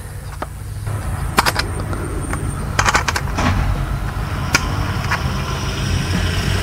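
Sharp clicks and knocks, a handful spread through, as a dash-kit side bracket is fitted onto a double-DIN car radio, over a steady low rumble.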